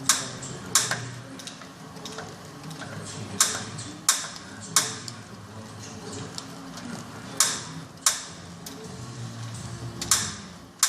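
Kettler Racer exercise bike being pedalled, making a weird clicking noise: sharp clicks in pairs or threes, about 0.7 s apart, coming back every three seconds or so over the low whir of the flywheel.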